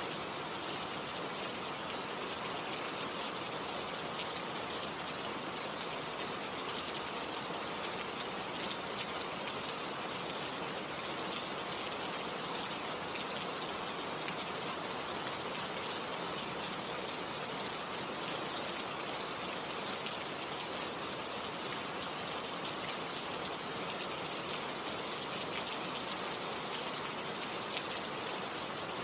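Steady rainfall, a dense even hiss of drops with fine pattering ticks.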